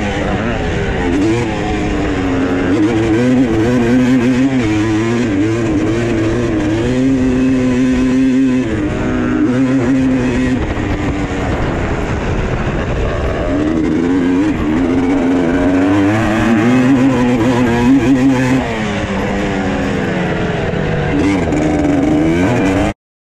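Two-stroke race quad engines revving up and dropping off over jumps and through corners on a dirt track, heard from a quad following close behind. The machine in front has an air-cooled 250R engine built by Robertson Racing. The engine sound cuts off abruptly near the end.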